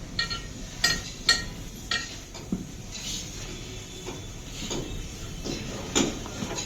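Light metal clinks from tyre-fitting tools: four quick ringing clinks in the first two seconds, then a few duller knocks.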